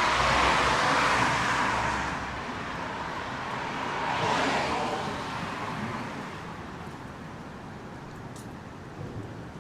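City street traffic: a car passes with engine rumble at the start, a second vehicle swishes by about four seconds in, and then the traffic noise settles lower.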